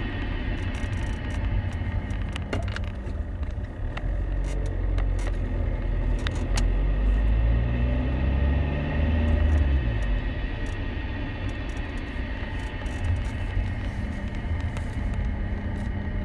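Alfa Romeo 1.9 JTDM four-cylinder turbodiesel car running, with a steady high-pitched whine over the engine and road rumble; the engine note climbs from about five seconds in and drops back near ten seconds. The whine is what the owner suspects are worn M32 gearbox bearings.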